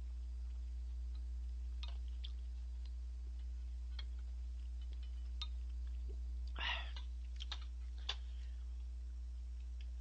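Eating sounds: scattered small clicks of chopsticks against the bowls and mouth sounds, with one short slurp of noodles about six and a half seconds in. A steady low hum runs underneath.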